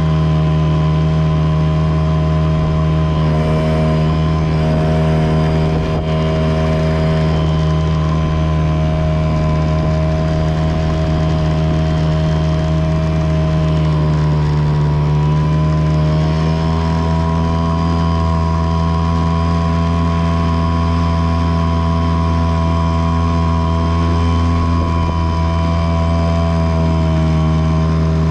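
Yamaha 5 outboard motor running at full throttle with a steady drone. About halfway through, the pitch dips briefly, then it settles slightly higher.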